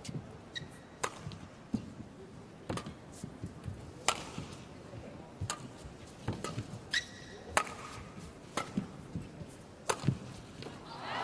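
Badminton rally: sharp racket strikes on the shuttlecock, about ten of them at roughly one a second, with brief shoe squeaks on the court floor.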